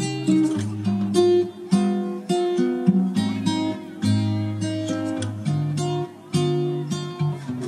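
Background music: an acoustic guitar picked and strummed, one note or chord about every half second.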